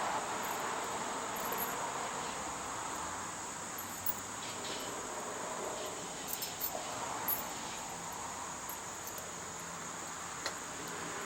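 Steady chirring of crickets or similar insects, with a few faint clicks.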